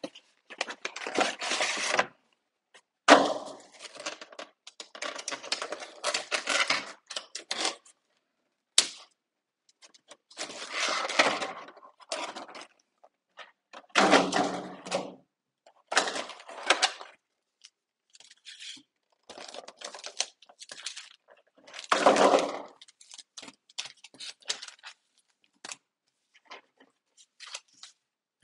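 Fast-forwarded rustling and tearing of a Pokémon TCG box's cardboard and plastic packaging as it is opened by hand, in irregular bursts with short silent gaps between them.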